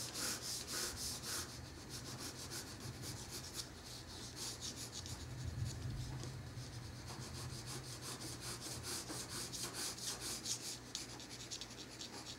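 Pencil scratching on paper in quick, light, repeated sketching strokes, several a second.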